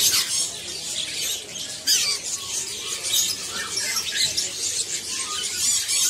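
Many caged songbirds chirping and twittering together in short, high-pitched overlapping calls, with sharper squeals at the very start and again about two seconds in.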